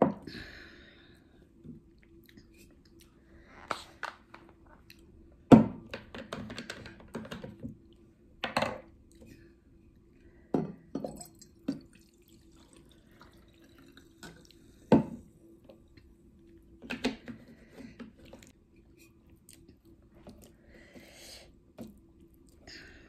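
Water poured from a plastic bottle into a drinking glass, among scattered knocks and clicks of the glass and hand on the table and plate, and chewing, over a faint steady hum.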